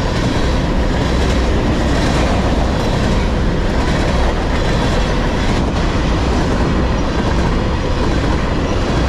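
Freight train cars, tank cars and covered hoppers, rolling past close by: a steady, loud rumble of steel wheels on the rails.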